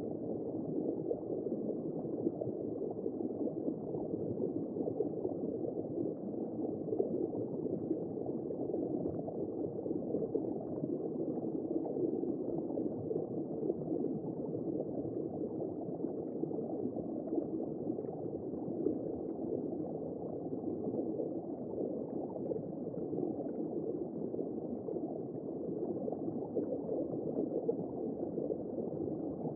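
Womb-sound white noise: a steady, muffled low whooshing rush with nothing in the high range and no beat.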